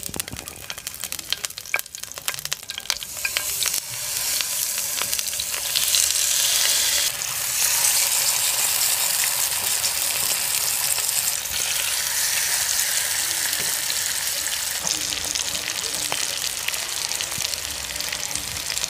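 Curry leaves crackling in hot rice bran oil, then a steady sizzle that swells after about three to four seconds as masala-coated whole fish are laid in the pan to fry.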